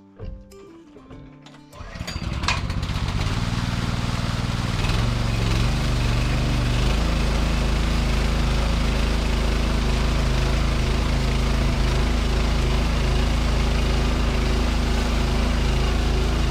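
Small gasoline engine of a backup water pump starting, catching about two seconds in and then running steadily. It is being left to run with the fuel shut off, to burn the fuel out of it before winter storage.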